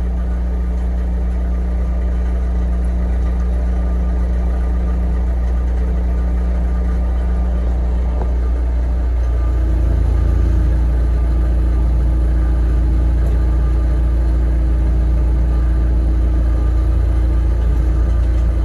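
A machine's engine running steadily, then revving up and working harder about nine seconds in.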